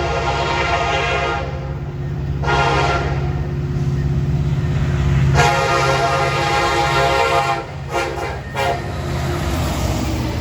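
Norfolk Southern freight locomotive's air horn sounded in a series of blasts: a blast ending about a second in, a shorter one, a long one of nearly four seconds, then a few quick short toots. A steady low rumble from the train runs underneath.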